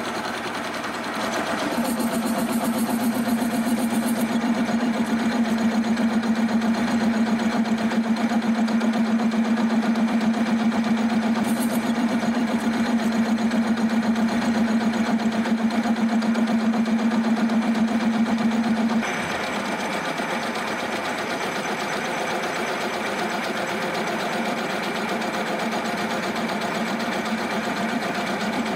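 Milling machine face-milling a metal block with an indexable-insert face mill: a steady mechanical cutting sound with a strong low hum. About two-thirds of the way through the sound changes abruptly and gets a little quieter, and the hum fades, then it runs on steadily.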